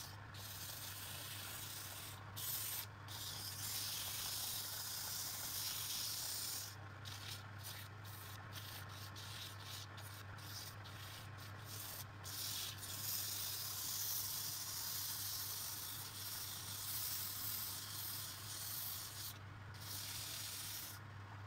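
Wood lathe running with a steady low motor hum while abrasive paper hisses against the spinning wood. The hiss breaks off for an instant many times, most often in the middle stretch, as the paper lifts off the work.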